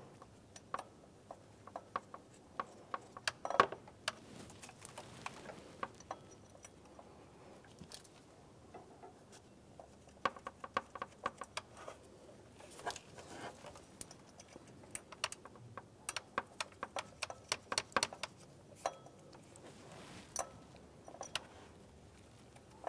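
Scattered light metallic clicks and ticks, some in quick clusters, as mounting bolts are started by hand through a water pump pulley.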